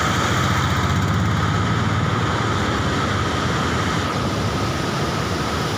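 Motorcycle engine running as the bike rides off over a loose gravel track. Its low throb is strongest for the first three seconds and then fades, over a steady rushing noise.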